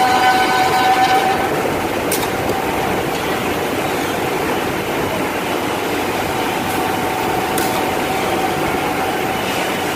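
Woodmaster two-table oval mortising machine running with a steady mechanical noise. Its thin whine fades after about a second and a half and returns near the end. Two short sharp clicks come about two seconds in and again at about seven and a half seconds.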